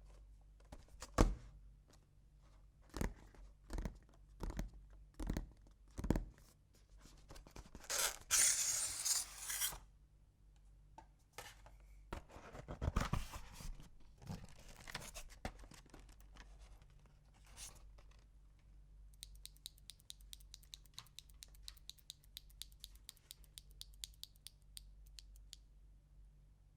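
Packaging being handled and opened: a string of clicks and knocks, a tearing sound about eight seconds in, scraping, then a fast, even run of fine ticks near the end.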